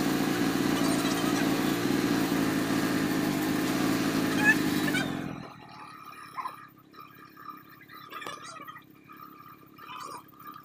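Suzuki Smash 115's single-cylinder four-stroke engine idling steadily, running again after it had stopped cranking. It cuts off about five seconds in, leaving only faint clicks and knocks.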